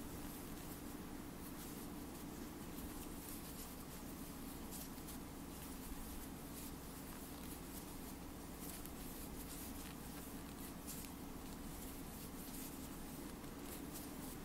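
Faint scratchy rustling of yarn and a crochet hook as single crochet stitches are worked in quick succession, over a steady low room hum.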